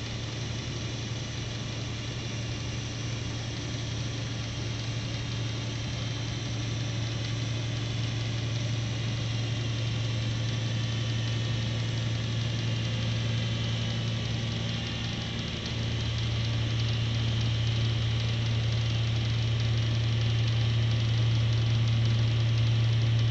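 Wheelrestore diamond-cut wheel repair lathe running, turning an alloy wheel as it machines the face. The machine hum is steady and grows gradually louder, stepping up about two-thirds of the way through.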